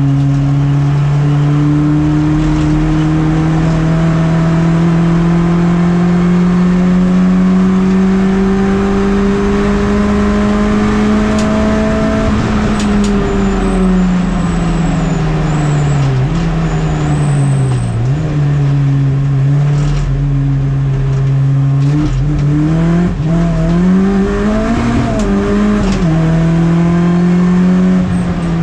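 MINI race car engine heard onboard at racing speed. Its note climbs slowly through one long pull in a high gear for about twelve seconds, drops as the car slows, rises and falls again through the corners, and climbs once more near the end. A few sharp clicks come in the middle.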